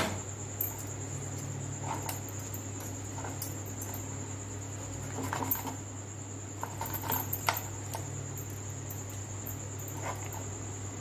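Crisp fried pooris being folded and chopped with a hinged notched-blade cutter on a wooden board: a few scattered short taps and crackles, busiest in the middle. Under them runs a steady low hum and a constant thin high whine.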